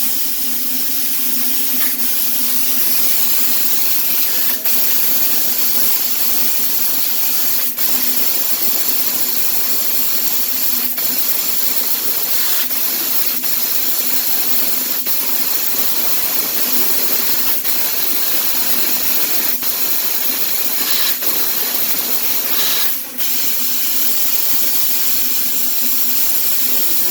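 CNC fiber laser cutting machine running: a loud, steady hiss with a steady low hum under it and faint sharp ticks every two to three seconds.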